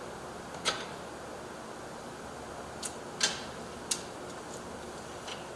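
About five short, sharp clicks and taps of storm door handle hardware being handled and screwed on, the loudest a little past the middle, over a steady background hum.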